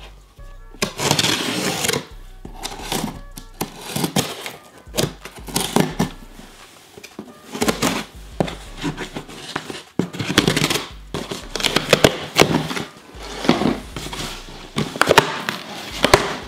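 A shipping box being torn open by hand, with cardboard and packing tape ripping in a run of irregular loud bursts. Background music plays underneath.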